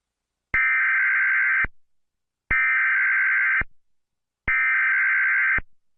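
Three bursts of Emergency Alert System SAME header data tones, a buzzy digital warble about a second long each with about a second's gap between.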